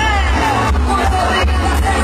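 Live band music played loud over a concert PA, with heavy booming bass and a voice singing the melody, recorded from within the crowd.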